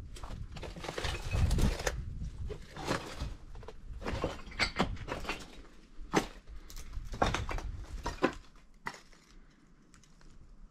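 Irregular footsteps crunching through dry undergrowth and debris, with sharp crackles and snaps every second or so. A low rumble lies under the first couple of seconds, and the steps thin out and go quieter near the end.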